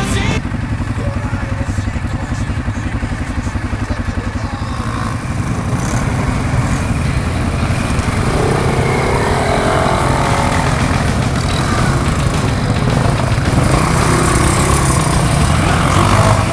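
Quad bike engines running under way, one close and steady. From about halfway, other quads' engines rise and fall in pitch around it as they rev.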